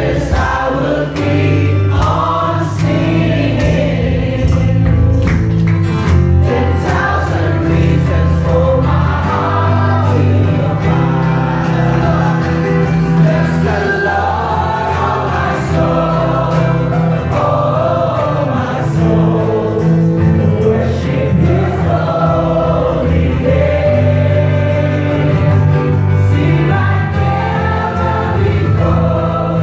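Live worship music: a congregation singing a worship song together over amplified instruments with a steady, heavy bass.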